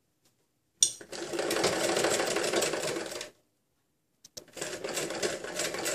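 Domestic sewing machine stitching through fabric in two runs: one of about two and a half seconds starting about a second in, then after a pause of about a second a second run near the end.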